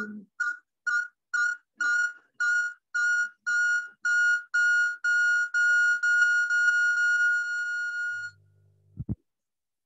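Electronic beeping at about two beeps a second, each beep longer than the last until they merge into one steady high tone, which cuts off about eight seconds in. A brief low hum and a single click follow near the end.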